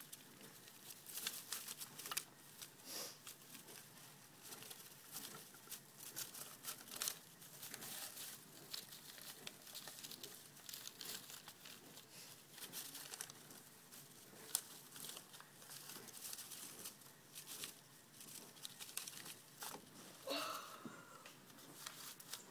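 Shredded newspaper rustling and crinkling in quick, irregular crackles as pet mice scurry through it.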